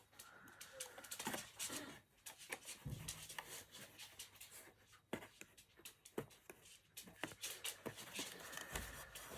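Faint, scattered clicks and rustles of card and red liner double-sided tape being handled and pressed onto paper tabs.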